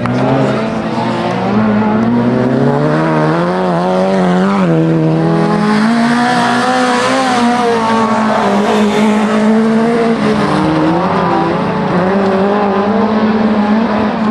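Autocross race car engines revving hard on a dirt track, their pitch rising and falling again and again as the cars accelerate and lift for the corners.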